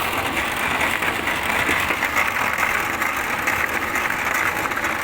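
Wood pellet machine running steadily with a dense, even mechanical noise.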